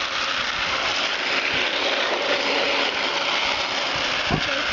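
Tamiya 4WD remote control truck's motor and gearbox running steadily with a steady whine.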